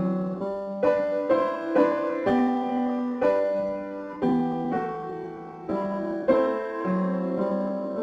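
Slow background piano music, with single notes and chords struck and left to ring.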